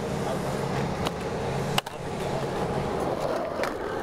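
Skateboard wheels rolling on concrete, a steady low rumble, with a few light clicks and one sharp click a little under two seconds in.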